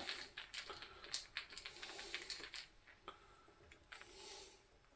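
Faint small clicks and scrapes of a screwdriver turning a little screw in a lamp fitting, thinning out after about three seconds.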